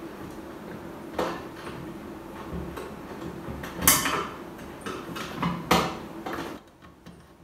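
Handling sounds at a plastic pump panel box: a few separate clicks and knocks as a screwdriver and wires are worked at the terminal block, the loudest about four seconds in. A steady low hum runs underneath and drops out near the end.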